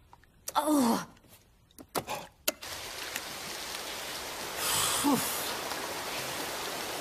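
Cartoon shower spray running as a steady hiss, starting about two and a half seconds in, just after a few sharp clicks. A short falling vocal cry comes near the start, and another about halfway through.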